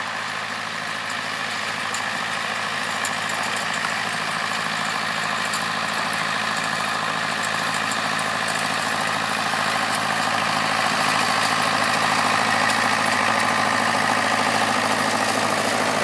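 Allis-Chalmers ED40 tractor's four-cylinder diesel engine running steadily as it pulls a seed drill across the field, growing gradually louder as the tractor comes closer.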